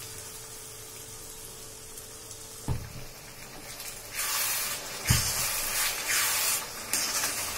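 Tamarind pulp poured into a hot iron kadai of fried onion-tomato masala and stirred in. A metal spoon knocks against the pan a couple of times, and from about four seconds in the masala sizzles in several loud hissing surges.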